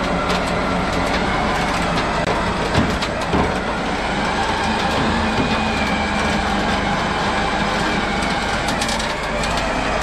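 Recovery truck's bed-mounted winch hauling a car up the tilted flatbed on its wire cable: a steady mechanical running with clicks and rattle, and a couple of knocks about three seconds in.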